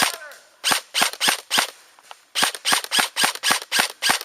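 Airsoft gun firing rapid single shots, sharp cracks at about three to four a second: one shot at the start, a run of four, a brief pause, then a longer run of about nine.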